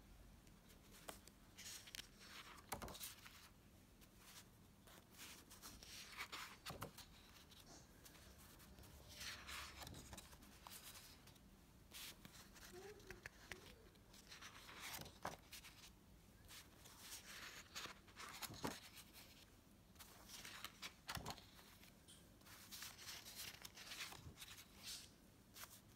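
Faint rustling and swishing of cardstock planner dividers being handled and turned over, with a few light clicks and taps.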